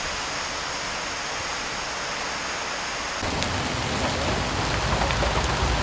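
Steady rain hiss. About three seconds in it switches abruptly to louder, fuller rain with more low rumble.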